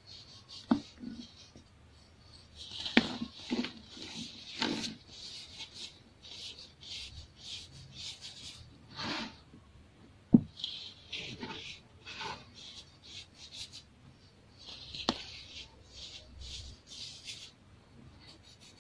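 Chunks of baking soda crunching and crumbling as fingers crush them, a run of irregular gritty crackles broken by a few sharp snaps as pieces break apart. The loudest snap comes about ten seconds in.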